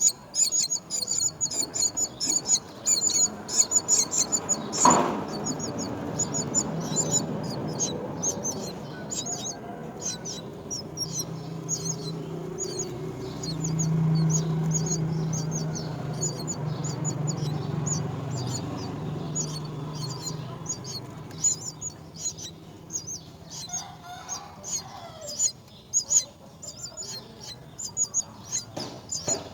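Nestling birds chirping in rapid high bursts, thick at first and then sparser. There is a sharp knock about five seconds in, a low hum through the middle, and a few sliding calls near the end.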